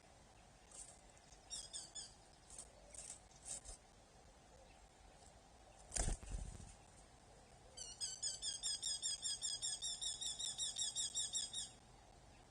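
Birds at a falcon nest: a few faint high chirps, a loud thump about halfway through, then a fast, even series of sharp repeated calls lasting nearly four seconds.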